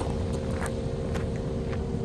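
Kubota KX080 crawler excavator's diesel engine running steadily, with a few short clicks.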